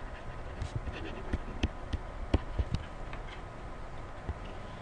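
Irregular light taps and scratches of writing, several a second with uneven gaps, over a faint steady hum.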